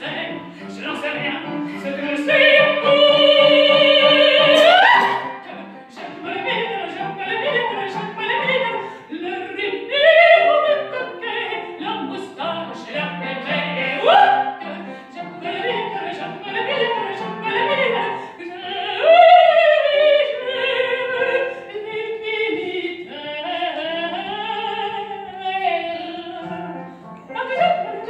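A female opera singer singing with vibrato. A couple of seconds in she holds one long loud note that slides upward at its end, then carries on through several more sung phrases.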